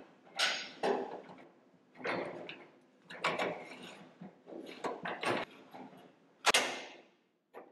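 Steel pivot rod of a Henny Penny fryer lid sliding out of its stainless-steel bracket while the lid assembly is handled: a series of metallic scrapes, clinks and knocks. The loudest is a sharp clank about six and a half seconds in.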